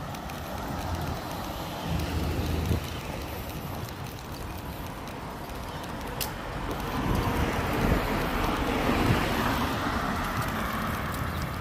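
Steady city road traffic rumble, with a vehicle swelling past about seven to ten seconds in and a single sharp tick shortly before.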